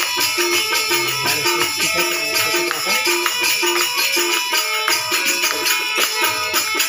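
Instrumental passage of a live Hindi devotional bhajan with no singing: a steady beat of jingling percussion over low drum hits and a short repeated melodic note.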